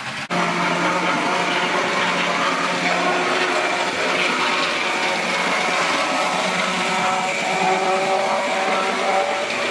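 Model locomotive's small electric motor whining steadily as a 4mm-scale model train runs along the track, with the hiss and rumble of wheels on the rails. The whine sets in after a brief drop just after the start.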